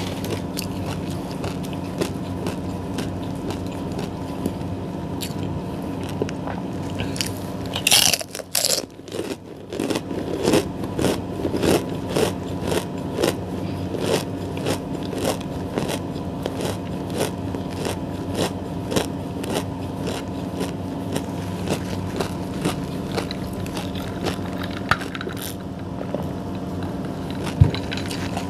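Close-miked crunching and chewing of crispy pork cracklings (chicharon), with one loud bite about eight seconds in and a busy run of crunches just after. A steady low hum runs underneath.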